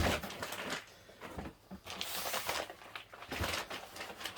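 Plastic ration packaging being handled: irregular crinkling and rustling with a few small clicks, loudest at the start and again in the second half.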